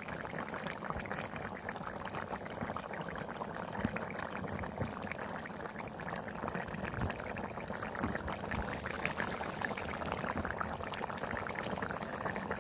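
Thin fish curry (jhol) boiling in a pan: a steady crackle of many small bubbles popping.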